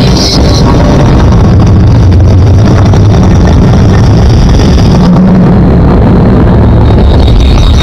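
Loud, steady deep rumbling roar of a cinematic dust-storm sound effect under a film studio's logo animation, as a bird disintegrates into swirling debris that forms the emblem.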